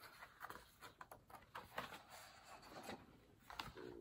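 Faint paper rustling and soft ticks as a picture book's page is turned and smoothed flat by hand.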